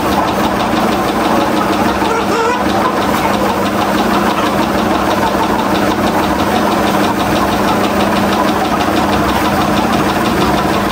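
A small engine running steadily, with a fast, even pulsing beat and a constant hum.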